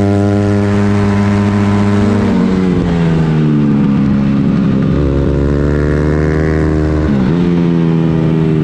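Racing pit bike's single-cylinder engine running hard at high revs, its pitch dropping and climbing back about three times as the rider shifts gear and slows for corners.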